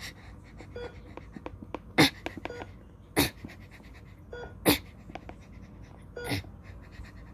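Handling noise: five short rustling bumps, a second or more apart, as a plush toy is handled close to the microphone, with faint small clicks between them.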